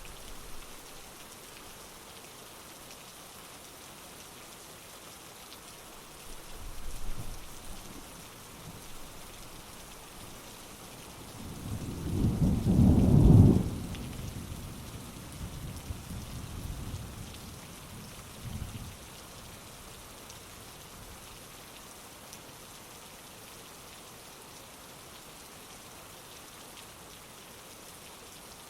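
Steady heavy rain with thunder: a small rumble about six seconds in, then a loud low thunderclap rolling about twelve seconds in and dying away in smaller rumbles over the next several seconds.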